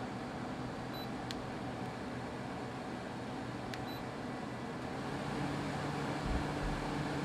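MyFriend MFAC-B08KR portable air conditioner running: a steady rush of air with a low hum. Two short faint beeps with clicks come about a second in and about four seconds in. About five seconds in, the running sound grows louder with a deeper hum.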